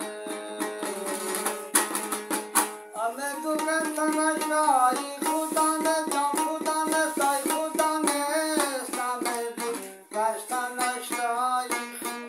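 A man singing a folk song to his own accompaniment on a dambura, the long-necked Afghan lute, strummed in a quick, even rhythm. The lute plays alone at first, and the voice comes in about three seconds in.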